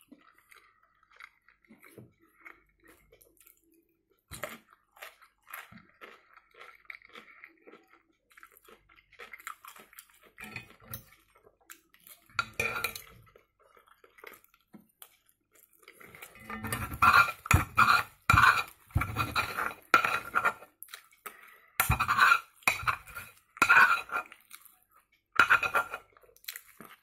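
Metal spoon and fork scraping and clinking against a heavy cast-iron frying pan, with chewing in between. Scattered light clicks and scrapes at first; from a little past halfway the scraping becomes louder and comes in quick repeated strokes.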